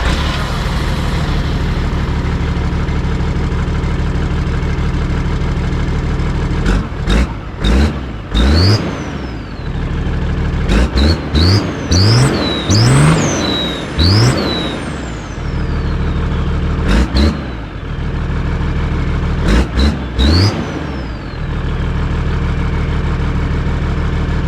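1993 Toyota Land Cruiser 80 series' straight-six turbo diesel running, then blipped repeatedly through the middle, with a high whistle rising on each blip before settling back to idle. It runs through its factory 2.5 exhaust, whose flex section is blown out.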